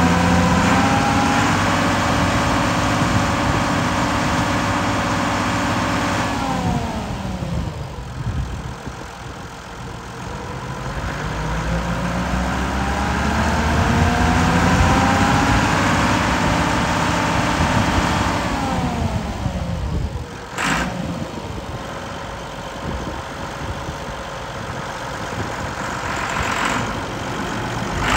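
Massey Ferguson 3545 tractor's diesel engine running while the tractor is driven. Engine speed drops about six seconds in, climbs back to a peak around fifteen seconds, then falls about eighteen to twenty seconds in to a lower, steady idle. There is a single sharp click about twenty seconds in.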